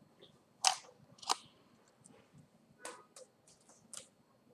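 Two sharp plastic clicks about half a second apart, then a few lighter ticks, as a Lenovo IdeaPad S410P laptop keyboard's ribbon-cable connector is released and the keyboard is lifted off the palmrest.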